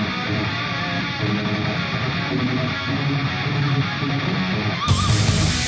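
Background music led by strummed guitar, steady and loud; the sound changes abruptly near the end.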